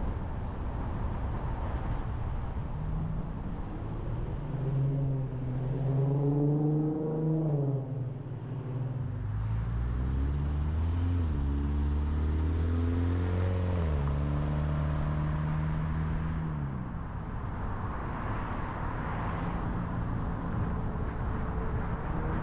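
Car on a country road with steady tyre and road noise; an engine comes up, its pitch climbing as it accelerates, dropping about eight seconds in, climbing again, then fading away past the middle.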